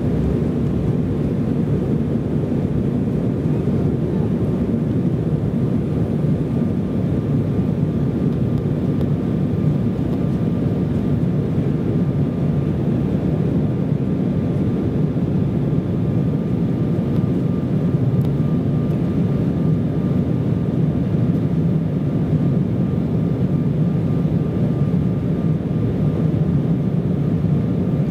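Cabin noise inside an Embraer ERJ-170 jet during takeoff and initial climb. Its two GE CF34-8E turbofan engines at takeoff thrust give a steady deep rumble, with a faint steady whine.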